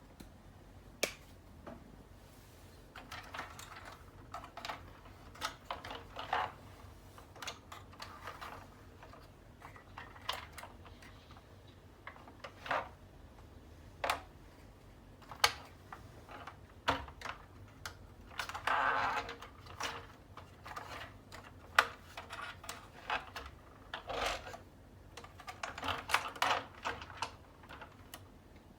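Irregular clicks, taps and short rattling stretches of small hard parts being handled and fitted together, with a few louder knocks.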